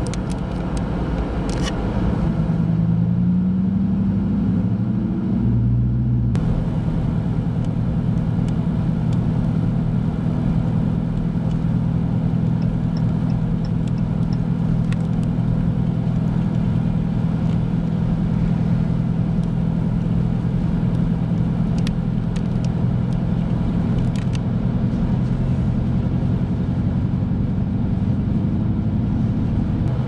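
Vehicle engine idling steadily with a low hum and rumble, its pitch shifting briefly a few seconds in.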